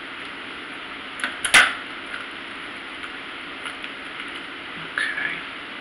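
Kitchen shears set down on a wooden cutting board, a sharp clack about a second and a half in after a lighter click, then a few faint clicks as fingers pry at a lobster tail's shell.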